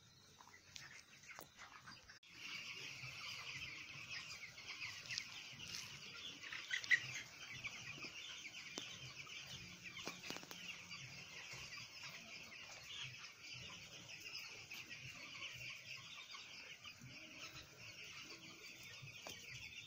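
A flock of broiler chickens in a poultry house, many birds calling at once in a dense, continuous chatter that starts abruptly about two seconds in, with one louder call about a third of the way through.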